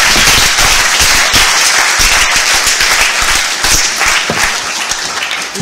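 Audience applauding, dense clapping that eases off slightly toward the end.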